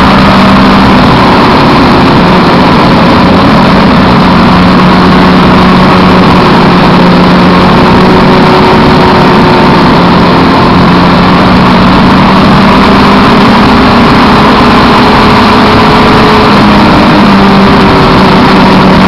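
Suzuki Hayabusa's inline-four engine pulling at a steady cruise, its note holding an even pitch with a brief change near the end. Heard from a camera mounted on the bike's fairing, under a loud rush of wind over the microphone.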